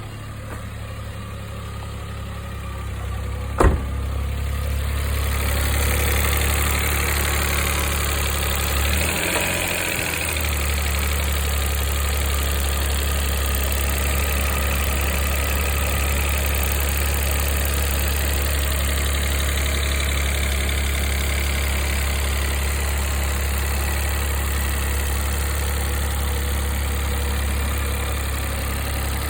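Mitsubishi i's three-cylinder 660 cc engine idling steadily with an abnormal noise. The owner puts the rattle down to a failing air-conditioning compressor, strained by a newly replaced auto-tensioner, and a whirring to something inside the engine. A single sharp click about four seconds in.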